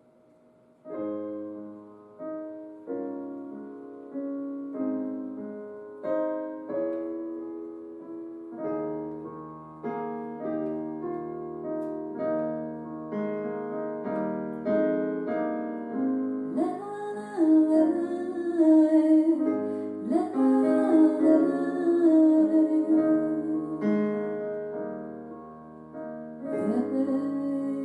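A ballad played live on piano begins about a second in with a slow solo intro of chords, and a woman's singing voice comes in over it after about sixteen seconds.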